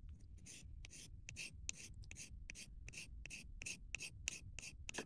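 Craft scalpel blade scraping the side of a soft artist's pastel stick, shaving powder into a small plastic tub in quick, even strokes, about four a second.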